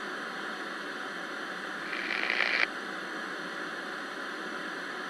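Steady hiss of static, with a louder burst of higher, harsher static about two seconds in that lasts under a second and cuts off suddenly.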